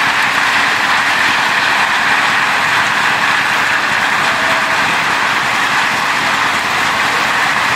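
Heavy rain pouring down, a loud steady hiss with no breaks.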